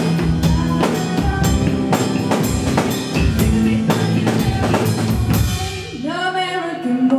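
Live band playing the close of a hip-hop song: a drum kit keeps a steady beat of kick and snare over held bass notes. The drums stop about six seconds in, leaving a few held, wavering tones.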